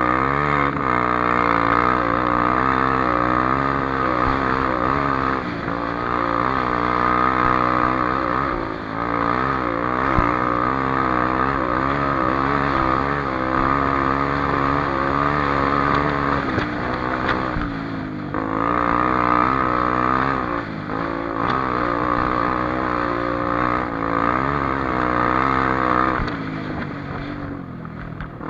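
Honda XR250 Tornado's single-cylinder four-stroke engine running hard as the dirt bike is ridden, its revs rising and falling continually with gear changes and throttle. The engine note dips briefly about 9 and 18 seconds in and again near the end.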